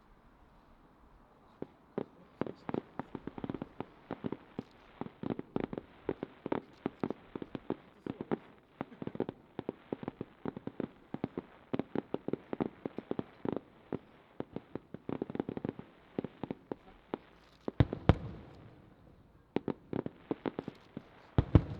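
Aerial fireworks shells bursting in a rapid barrage of sharp bangs, several a second. Two louder, heavier booms come near the end.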